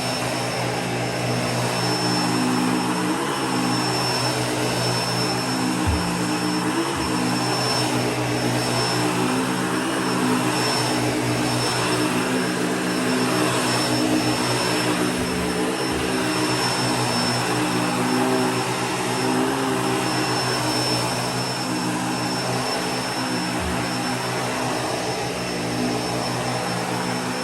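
Bissell Pet Hair Eraser Turbo upright bagless vacuum running steadily while it is pushed over carpet: a motor hum with a high steady whine over a rush of suction, swelling slightly now and then.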